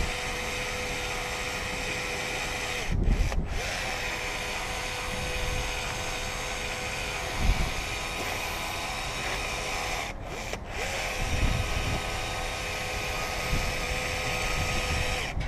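Cordless caulking gun's electric motor driving the plunger to lay a urethane bead around a windshield's edge: a steady whine that stops briefly about three seconds in and again about ten seconds in, each time starting up again with a short rising whine.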